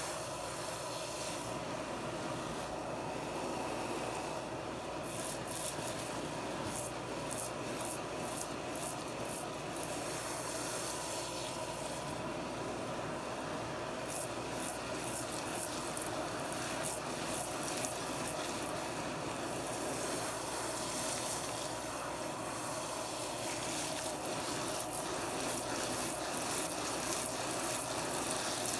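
Spray of water from a tap running steadily into a sink of soapy foam while a sponge is squeezed and rubbed in the suds. Two runs of quick squishing strokes, about two a second, come a few seconds in and again around the middle.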